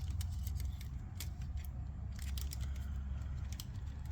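Irregular small clicks and ticks from handling an opened VHS cassette's plastic shell and tape reels, over a steady low hum.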